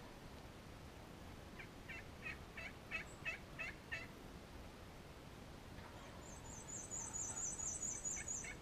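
Turkey yelping: a series of about eight short, evenly spaced yelps over two seconds. Near the end a small bird sings a fast, high-pitched trill.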